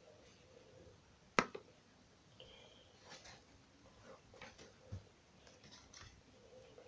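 Slime being handled, giving faint scattered sticky clicks and smacks, with one sharper click about a second and a half in.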